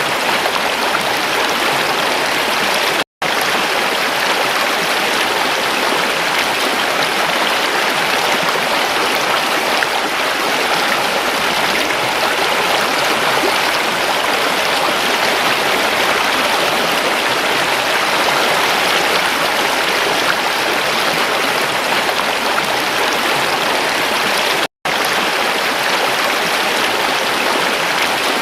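Water of a flowing stream rushing and babbling steadily, broken twice by a split-second silent gap, once about three seconds in and once near the end.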